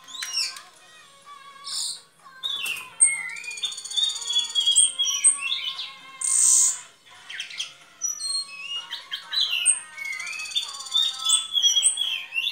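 Caged anis cendana thrush singing a long, varied song of quick whistled phrases, broken by two extended buzzy trills.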